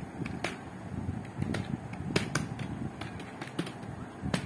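Typing on a computer keyboard: about a dozen sharp key clicks at an uneven pace, over faint low background noise.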